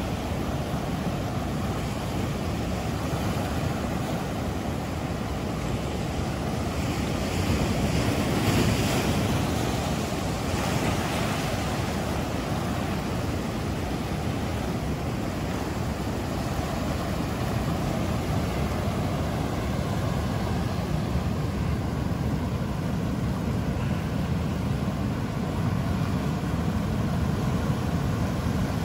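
Ocean surf breaking on a beach: a steady rush of waves that swells louder with a bigger wave about eight seconds in, with wind rumbling on the microphone.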